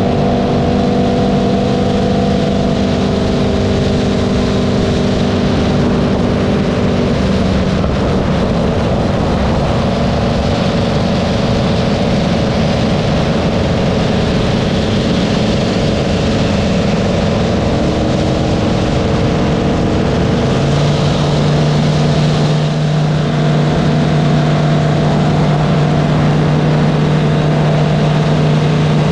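Cammed LS3 V8 of a Holden Commodore droning at a steady cruise, with wind rush over it. The engine note shifts to a lower tone about two-thirds of the way through.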